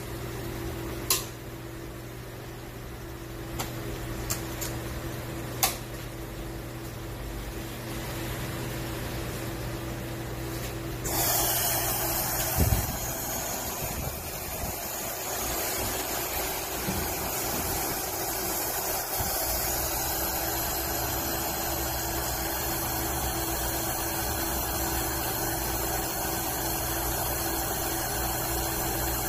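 AXXAIR orbital welding head for stainless sanitary tube: a few sharp clicks as it is clamped shut around the tube, over a steady machine hum. About eleven seconds in a steady hiss starts, with a thump just after, as the automatic welding cycle begins, and the hiss carries on.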